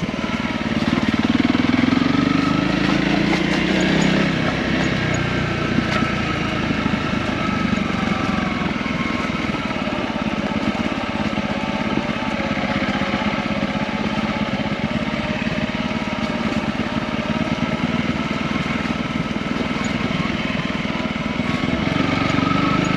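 Single-cylinder engine of a Honda CRF250 dual-sport motorcycle pulling away, rising in pitch over the first few seconds, then running steadily at riding speed.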